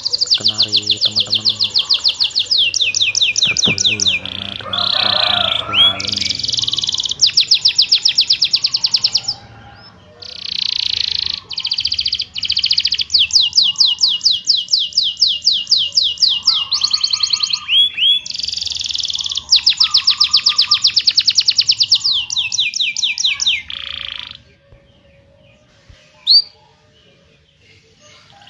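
Domestic canary singing in long, fast rolling trills of rapidly repeated high notes, phrase after phrase with short breaks and a few separate chirps. The song stops about 24 seconds in.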